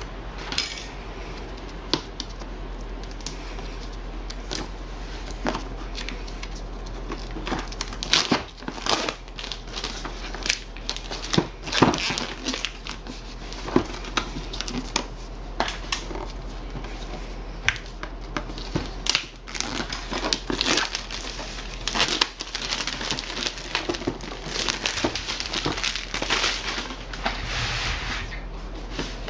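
Clear plastic shrink-wrap being cut and peeled off a cardboard product box: irregular crinkling and crackling with sharp clicks, busier after the first several seconds.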